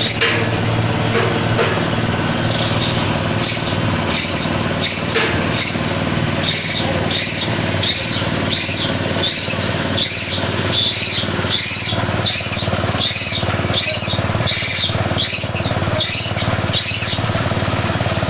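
Pellet press made from a modified meat grinder running steadily with a low hum. From about three seconds in until near the end, a high chirp repeats about twice a second over it.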